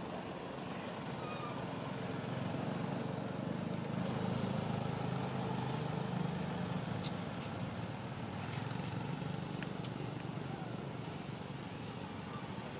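Low motor-vehicle engine rumble in the background, swelling over the first few seconds and then slowly fading, with a faint sharp click partway through.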